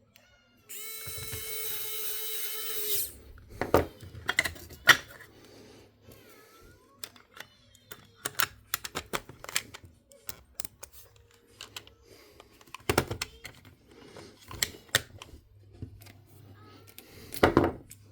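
A small electric tool motor whirs steadily for about two seconds. Then come a long run of sharp clicks and taps from small screws and parts being handled during the repair of a Sony MZ-R3 MiniDisc recorder.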